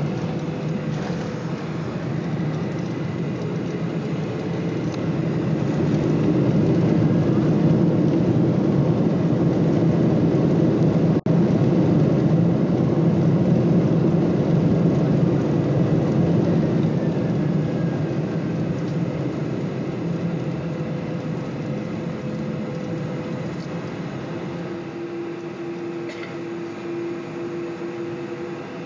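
Boeing 747 jet engines and the rush of the landing rollout heard from inside the cabin. The noise swells over the first several seconds, holds, then slowly dies away as the airliner slows to taxi. A faint steady whine rises near the end.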